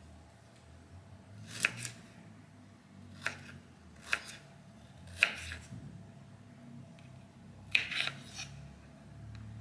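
Small kitchen knife chopping peeled ginger on a wooden cutting board: sharp knocks of the blade through the root onto the board, about seven at uneven intervals, two of them in quick succession near the end.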